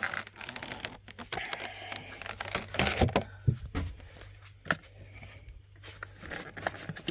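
Plastic bags and food packaging rustling and crinkling as groceries are handled, with scattered light knocks of items being set down in a refrigerator.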